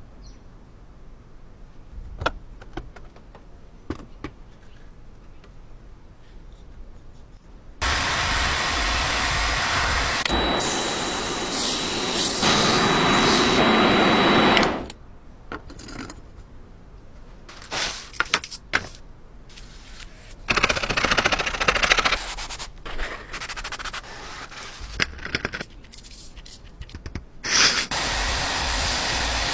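Workshop tool sounds: scattered clicks and knocks, with several stretches of loud, noisy machine running. The longest runs about a third to halfway through and carries a steady high whine.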